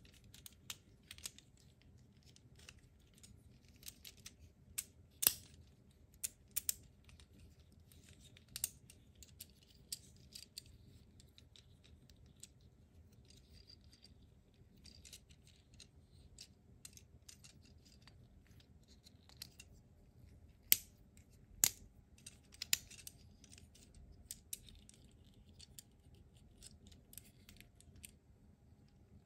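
Plastic clicks and snaps of a small transforming ambulance robot toy as its jointed parts are folded and swivelled by hand. The clicks come irregularly, with a few sharper snaps about five seconds in and again around two-thirds of the way through.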